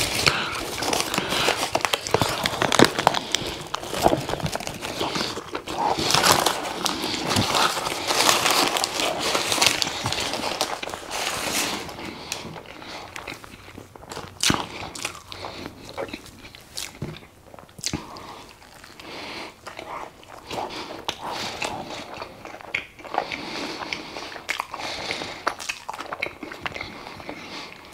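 Eating a gyros pita stuffed with fries: bites, chewing and the crinkle of its paper wrapper. These are busiest in the first dozen seconds, then give way to quieter chewing with scattered clicks.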